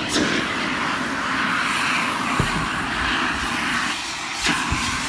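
Fire extinguisher discharging with a steady rushing hiss, broken by a couple of short knocks about two and a half and four and a half seconds in.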